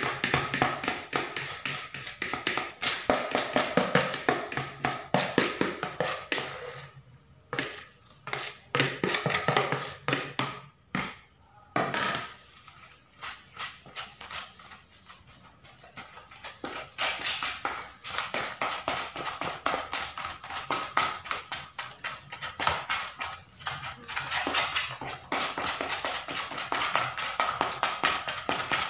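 Spoon stirring and tapping against a plastic bowl while mixing a wet, doughy bait mix of shredded fish meat and corn binder: quick runs of clicks and scrapes, quieter for a few seconds about midway.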